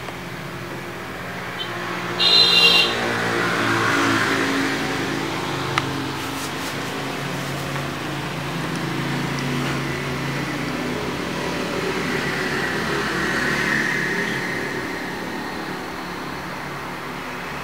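Engine noise that swells and fades twice, with a brief high-pitched tone about two seconds in.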